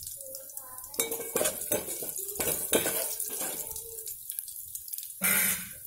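A metal spoon clanking and scraping against an aluminium pot over the sizzle of a tadka: garlic, dried red chillies, lentils, mustard seeds and cumin frying in hot oil. A short loud rush comes near the end.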